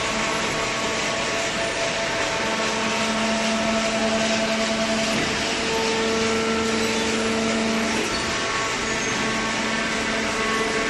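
Cardboard baler and its feed conveyors running: a steady machine din with several humming tones, one of which grows stronger for a few seconds in the middle and then drops back about eight seconds in.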